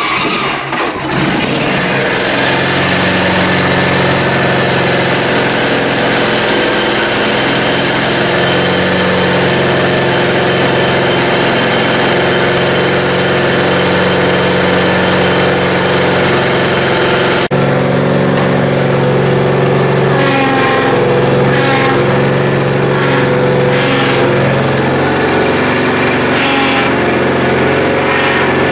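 Lawn mower's small gasoline engine running steadily just after starting. About two-thirds of the way through, the sound changes abruptly and the engine note wavers up and down.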